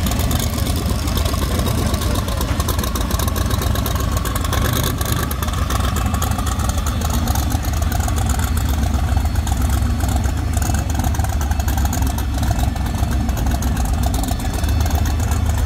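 Oldsmobile Cutlass 442 engine idling, a steady low-pitched sound that holds at an even level with no revving.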